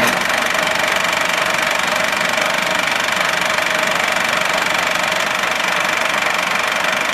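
Film projector running: a fast, even mechanical clatter over a steady whine, the sound laid over an old-film effect.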